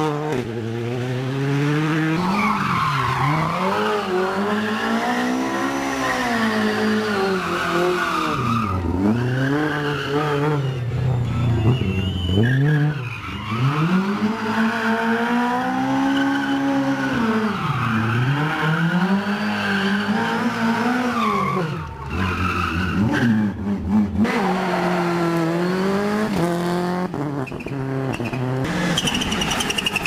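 Rally car engines revving hard, the pitch climbing and dropping again and again every couple of seconds, with tyres squealing and skidding.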